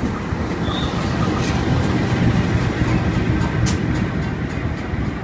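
Diesel locomotive of a local passenger train passing close by on the next track, followed by its coaches rolling past, a steady heavy rumble with a few sharp clicks from the wheels.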